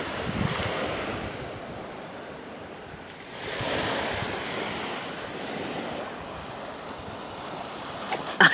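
Sea surf washing onto the shore, swelling louder about three and a half seconds in and then easing, with wind buffeting the microphone.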